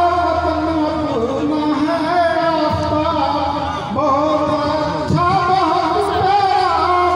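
A man singing a poem at a microphone, heard through loudspeakers, the voice holding long, slowly bending notes.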